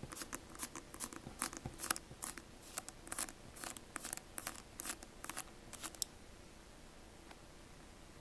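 Rapid, irregular small clicks and ticks of a precision screwdriver with a magnetic P2 bit turning a tiny pentalobe screw out of an iPhone 5c's case. The clicks stop about six seconds in.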